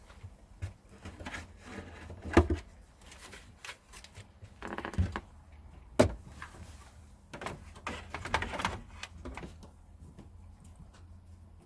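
Irregular knocks, clicks and clattering, with two sharp knocks about two and a half and six seconds in, over a steady low hum.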